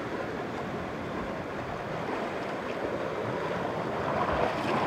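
Sea surf washing steadily, swelling a little near the end.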